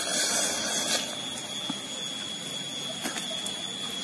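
Steady high-pitched insect drone of a tropical forest, with a few faint soft ticks of chewing.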